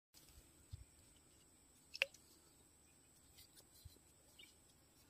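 Near silence: faint background with a few soft scattered clicks, the clearest about two seconds in, over a faint steady high tone.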